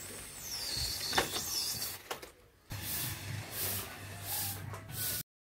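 Air hissing out of the balloon through the pipe of a homemade balloon-powered cardboard car as it runs across a concrete floor, with a falling whistle in the first second, then a string of short hissing bursts.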